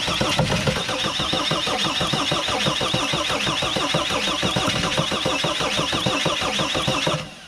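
Mercedes Sprinter diesel engine cranking on its starter without catching, an even rhythmic churning with a wavering high starter whine over it. It is being cranked to bleed air out of the fuel system after a fuel pump replacement. The cranking stops near the end.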